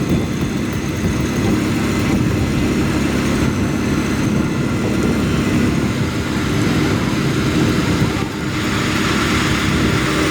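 A heavy vehicle's engine running steadily, with a change in the sound about eight seconds in.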